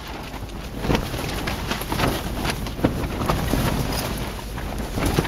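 Strong wind gusting against a tent, heard from inside, with the tent fabric flapping and snapping in quick irregular cracks over a steady rush.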